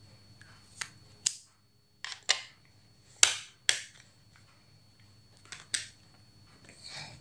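A run of about eight sharp plastic clicks and snaps, irregularly spaced: small lipsticks being capped and a plastic lipstick case being handled and snapped shut.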